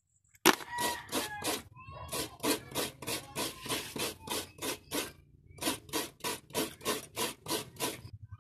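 Fresh coconut meat being grated over a metal basin: steady rasping strokes, about three to four a second, with a short pause about five seconds in.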